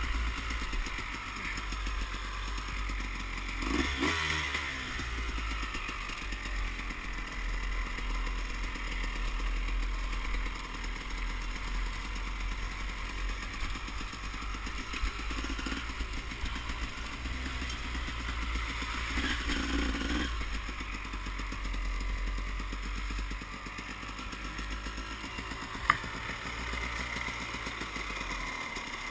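KTM dirt bike engine running while riding a rough trail, revving up briefly a few seconds in and again about two-thirds of the way through. One sharp click near the end.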